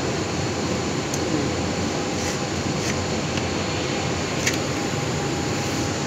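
Steady background hum and hiss of running machinery, with two faint clicks, one about a second in and one near the end.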